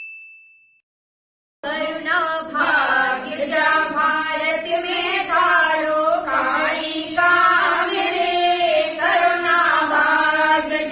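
A ringing ding fades out at the start, followed by a second of silence. Then devotional, aarti-style singing begins: a melodic voice sings a chant over a steady drone.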